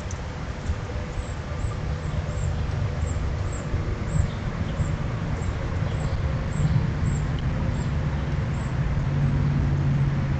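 Steady low outdoor rumble that grows a little louder in the second half, with faint short high chirps repeating over it.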